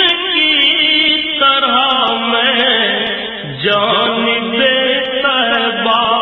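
Male voice singing an Urdu naat, a drawn-out melodic passage with no clear words between lines of the lyrics, the pitch bending and gliding.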